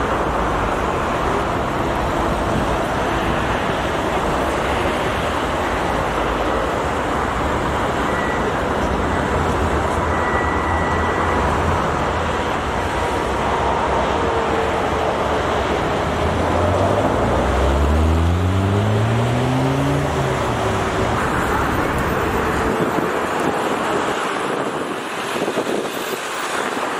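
Steady road-traffic noise. A little past halfway through, one vehicle's engine rises in pitch as it revs up and pulls away. Near the end the low rumble drops off.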